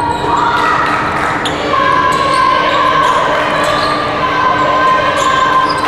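Basketball being dribbled and bounced on a hardwood gym floor during play, with repeated thuds echoing in the hall, under sustained shouting voices.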